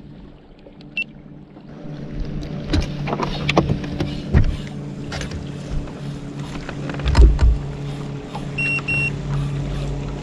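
Electric bow-mounted Garmin trolling motor running with a steady hum that comes in about one and a half seconds in, with scattered knocks and clicks over it. Two short high beeps sound near the end.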